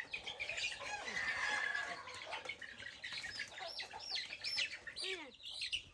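Chickens clucking and calling, with a run of short, high, arching chirps and a few falling calls near the end.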